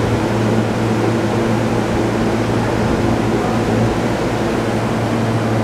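JR East E231 series suburban train standing at a platform, its onboard equipment and rooftop air conditioners giving a steady hum with a few steady low tones.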